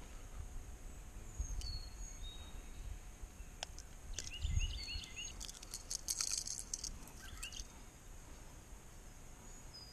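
Birds chirping outdoors, a short phrase of quick high notes repeated several times. Between them come close clicks, crackles and low rustles from handling while the hook is worked out of a small largemouth bass.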